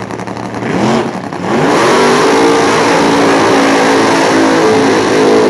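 Nitromethane-burning big-block V8 of a nostalgia funny car revved sharply twice, then held at steady high revs for about four seconds in a burnout, rear tyres spinning.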